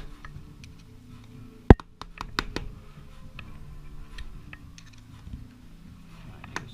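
Metal hand tools clicking and tapping on the engine's primary-drive nut and lock tab, with one sharp metal strike a little under two seconds in followed by a quick run of taps, while the tab is being bent back to free the primary nut. A steady low hum runs underneath.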